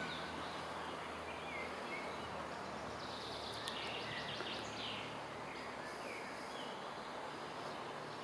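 Songbirds calling in woodland over a steady background rush, with a quick run of repeated notes about three seconds in.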